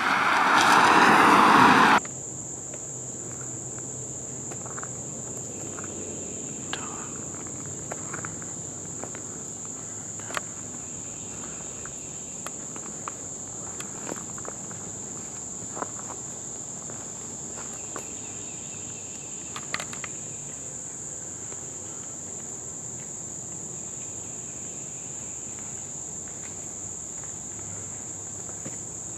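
A car passes close at speed, its noise rising for about two seconds before cutting off abruptly. Then comes a steady, high-pitched insect chorus in woodland, with scattered faint clicks and ticks.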